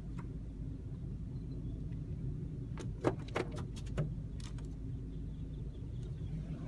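Steady low rumble of a car, with a short cluster of sharp clicks and taps about three to four and a half seconds in.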